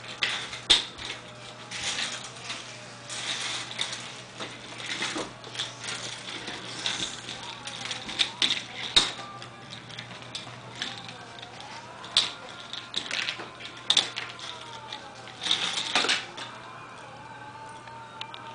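A toy doll stroller with a thin pink frame and yellow plastic wheels clicking and rattling on a tile floor as it is grabbed, pushed and tipped over, in irregular knocks and clatters.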